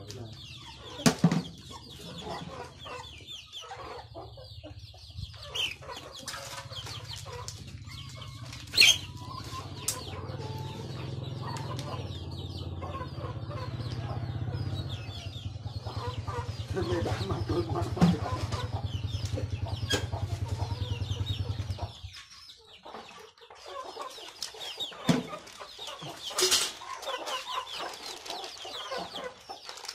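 Chickens clucking, with scattered short calls and sharp clicks. A low steady hum runs underneath and stops suddenly about three-quarters of the way through.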